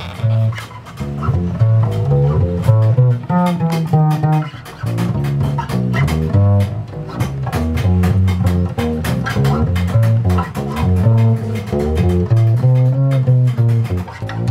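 Upright double bass built from a grandfather clock case, played through a guitar pickup and amplifier: a continuous run of plucked low notes with many sharp percussive clicks between them.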